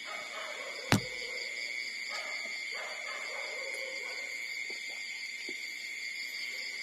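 Nursing puppies whimpering softly in short, wavering cries, over a steady high-pitched drone, with one sharp knock about a second in.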